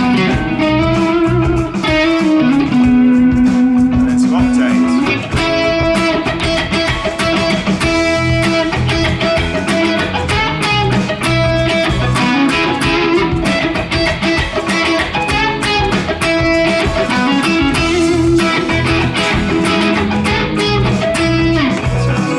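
Electric guitar solo in E major pentatonic, played over a full band backing track with drums and bass, with long sustained and bent notes between quicker licks.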